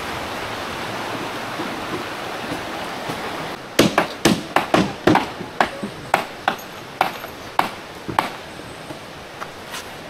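Steady rush of flowing river water, then from about four seconds in a run of sharp hammer strikes on metal, roughly two a second, each with a short ringing ping.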